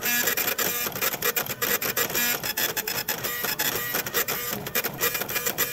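Desktop FDM 3D printer printing: its stepper motors sing in quickly shifting tones as the print head moves back and forth, with rapid ticking and a steady hiss underneath.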